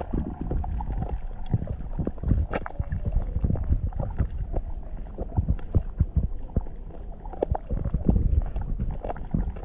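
Muffled water sound picked up by a camera submerged in a pond: a steady low churning broken by irregular knocks and thuds several times a second.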